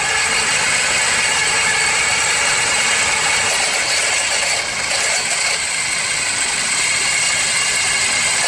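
Car engine running at idle with a steady rattling, grinding noise from the alternator and a high whine over it; the owner takes it for a broken alternator bearing letting the rotor run off centre and rub on the housing.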